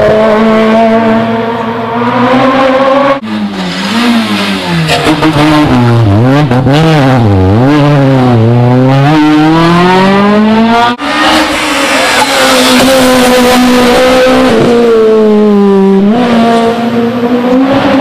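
Rally cars driven hard, their engines at high revs, one car after another. The second car's revs drop and climb again several times in quick succession, and the third's dip briefly and rise again later on.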